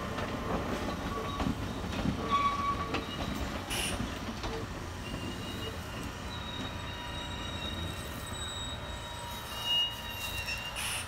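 Four-car Kintetsu limited express train running slowly into the depot, its wheels clicking and knocking over the yard's rail joints and points. From about halfway through, a thin high-pitched wheel squeal sounds on and off.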